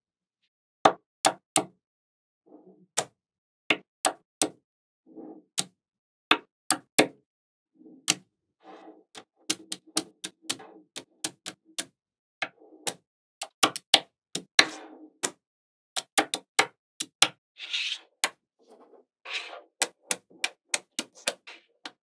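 Small magnetic metal balls clicking sharply against each other as strips and wall sections of balls are pressed into place, in irregular single clicks and quick clusters, with short soft rattles between them.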